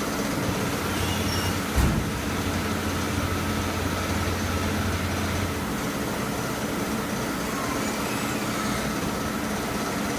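Steady hum of coating-line machinery turning racks of lamp-reflector cups. A deeper hum joins about a second in and stops about five and a half seconds in, with a single knock near the two-second mark.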